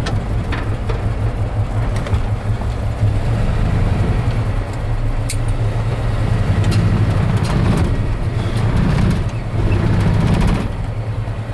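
1952 Ford F1's flathead V8 running steadily at low speed while the truck is backed in, heard from inside the cab, its note swelling a little a few times.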